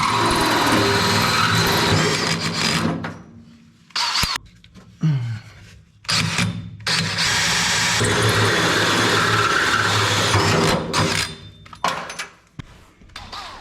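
Electric drill spinning a Starrett bimetal hole saw as it cuts through sheet steel. It runs steadily for about three seconds, stops, gives a couple of short bursts with one spin-down, then runs steadily again for about five seconds before a few short bursts near the end.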